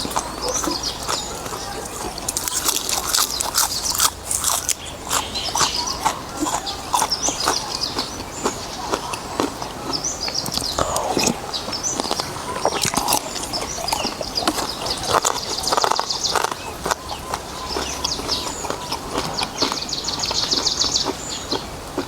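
Close-up eating sounds of a person slurping and chewing noodles in beef soup: many short wet clicks and smacks that follow one another irregularly.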